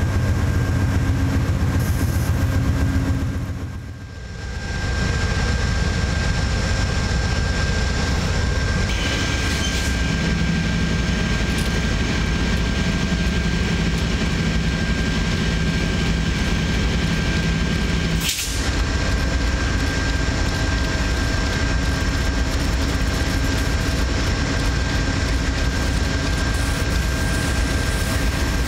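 Amtrak GE P42DC diesel-electric locomotive standing with its engine idling: a steady low drone with a constant high whine over it.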